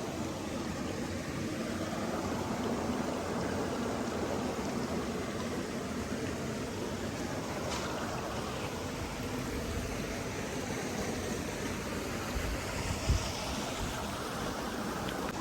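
Steady rushing of a flowing stream, with one brief low thump near the end.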